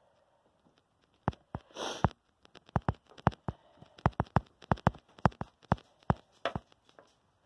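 Handling noise from a phone being moved around: a run of irregular sharp clicks and knocks starting about a second in, with a brief rustle near two seconds in and another near the end.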